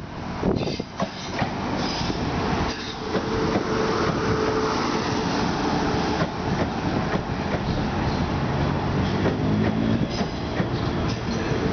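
South Western Railway multiple-unit passenger train running past close along the platform, with steady wheel-on-rail noise and a humming motor tone.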